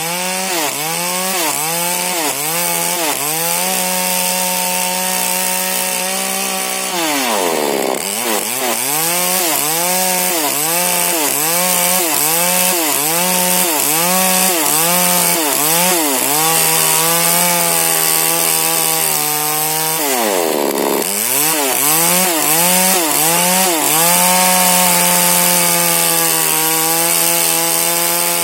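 A 40cc Husqvarna chainsaw with a modified exhaust and an 18-inch Stihl bar running at high revs while test cutting wood. Its pitch swings up and down rapidly and repeatedly, holds steady at full throttle for a few seconds at a time, and twice drops low before revving back up.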